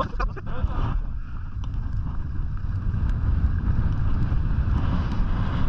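Wind buffeting an action camera's microphone while skiing downhill, a steady low rumble mixed with the hiss of skis sliding over packed snow, slowly growing louder as speed builds.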